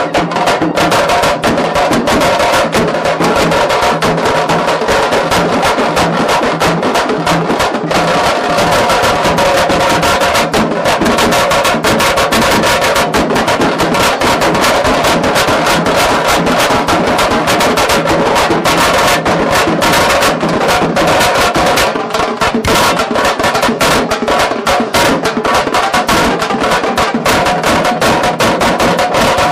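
Loud background music with fast, dense drumming over steady held instrument tones.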